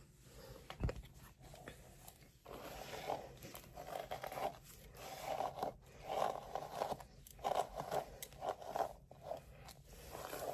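Hands rubbing and scraping through hair and a wig close to the microphone in a run of short crunchy strokes, about two a second, starting a couple of seconds in; a single low knock about a second in.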